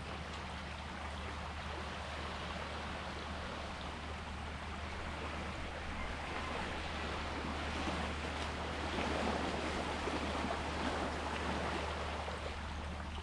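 Sea waves washing in, a steady rushing that swells louder about two-thirds of the way through, over a constant low hum.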